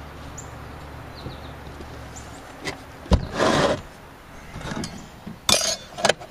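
A compound miter saw being turned back upright and handled on a bench: a sharp knock about three seconds in and a short scrape as it is set down, then a few sharp clicks and taps of metal and plastic parts near the end.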